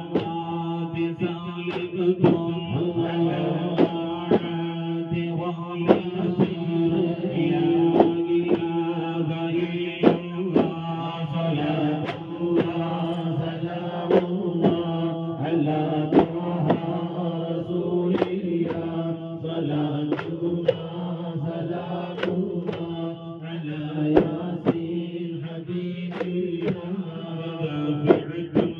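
Islamic devotional chanting: voices chanting together on a steady, drone-like pitch, with sharp percussive beats recurring every second or two.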